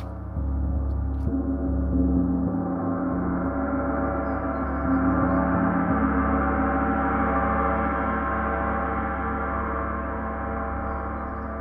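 Paiste 34-inch Symphonic gong played with two felt-headed mallets: a dense, shimmering wash of many overtones with no separate strikes standing out. It swells up about half a second in and again around five seconds, then slowly eases off.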